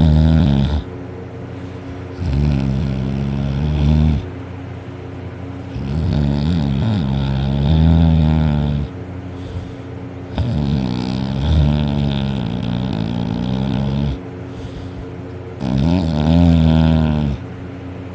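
A sleeping person snoring loudly: a string of long, deep snores about every three to four seconds, each lasting two to three seconds, with short quieter breaths between.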